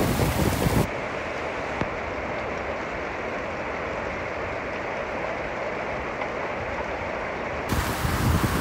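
Steady rain of a monsoon storm, with wind gusting on the microphone at the start and again near the end.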